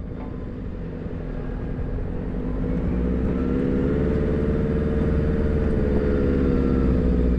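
Turbo-diesel Nissan GU Patrol running along a dirt track, its engine note rising a little about three seconds in and then holding steady as the sound grows louder.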